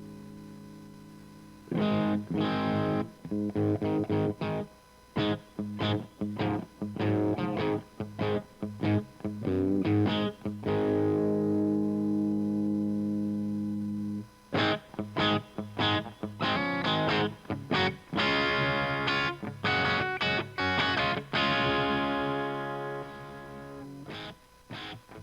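Distorted electric guitar played through an Omega Series Micro amplifier, recorded direct with a Greenback cabinet impulse and reverb added: choppy chords and riffs broken by short stops, with a chord left to ring about halfway through and another near the end.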